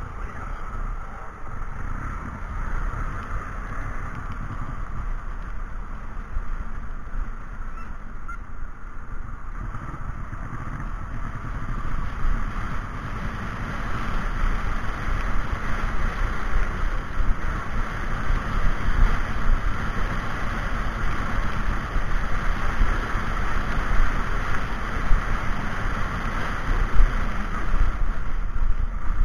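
Steady wind and road rumble from a moving vehicle, getting louder about halfway through as it picks up speed.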